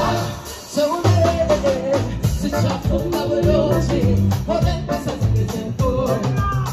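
Live band music with a woman singing lead over bass and drums. The music thins out briefly at the start and the full band comes back in about a second in.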